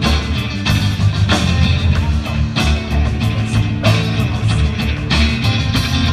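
Rock band playing an instrumental stretch of a song: guitar over bass and drums with a steady beat.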